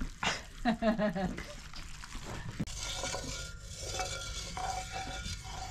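A roux being stirred in a pot, the spoon scraping over a steady faint sizzle.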